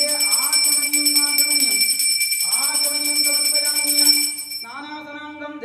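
A hand bell rung continuously, its steady bright ring cutting off about four seconds in. Under it a voice chants in long, sliding melodic notes.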